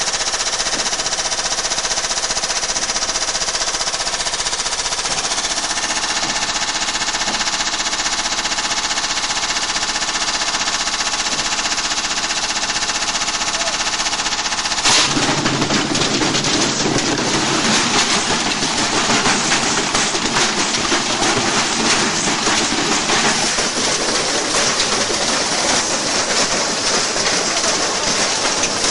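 Washing machine running with a steady whine from the motor and drum. About halfway through comes a sudden bang, then rapid, continuous clattering and banging as a brick is battered around inside the spinning drum.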